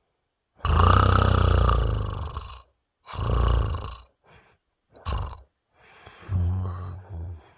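A man snoring in his sleep: a long, loud snore about half a second in, a shorter one, two brief snorts, and another snore near the end.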